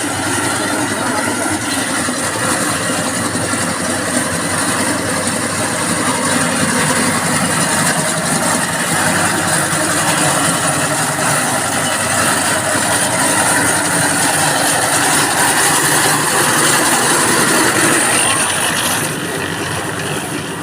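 An engine running steadily under a constant hiss, easing off slightly near the end.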